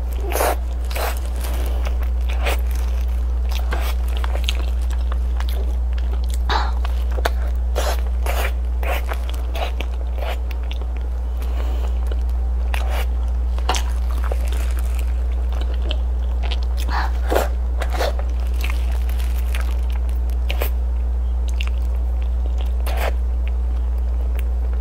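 Close-miked eating of soft braised pig tail, meat already coming off the bone: irregular wet lip smacks, sucking and chewing. A steady low hum runs underneath.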